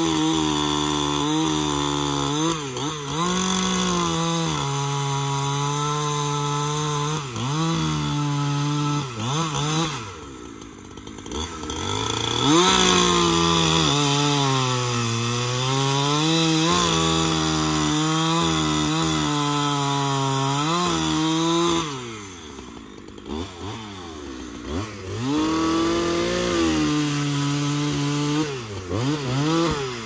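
Two-stroke chainsaw with a dull chain cross-cutting pine logs, revving high under load with the pitch sagging as it bites. It drops back to idle twice between cuts and again near the end.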